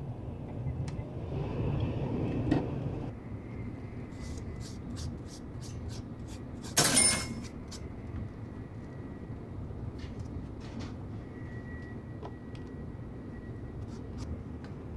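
Steady low rumble of a Shinkansen bullet-train cabin, with small clicks and crackles as a paper ice cream cup and its lid are handled and peeled open. A short, loud rustle about seven seconds in is the loudest sound.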